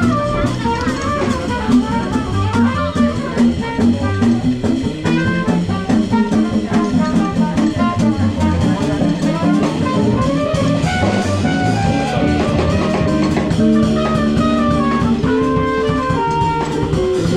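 Live band playing, with a drum kit keeping a steady beat under shifting melodic lines.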